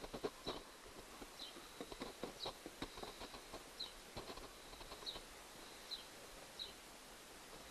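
Light clicks and taps of a screwdriver and small metal parts on the brush plate of a Johnson 90 hp outboard starter motor being taken apart, thickest in the first half. A bird gives a short falling chirp every second or so.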